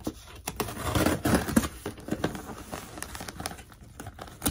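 Scissors slicing open a cardboard shipping box, with irregular scraping, tearing and crinkling strokes.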